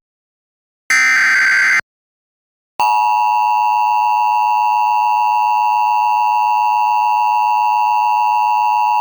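Emergency Alert System alert from an EAS encoder: a one-second screeching burst of SAME digital header data about a second in, a short gap, then the steady attention tone starting about three seconds in and holding to the end.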